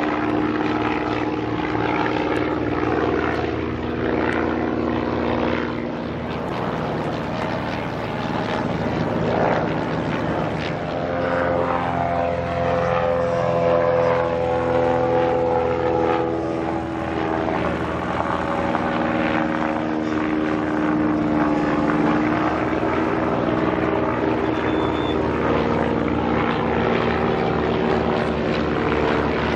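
A de Havilland Chipmunk's piston engine and propeller in a low flyby, a steady drone whose pitch shifts a few times as the plane passes.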